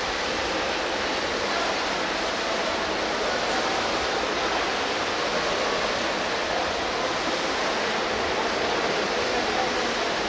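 Steady wash of splashing from several swimmers doing butterfly in an indoor pool hall, with voices from around the pool mixed in.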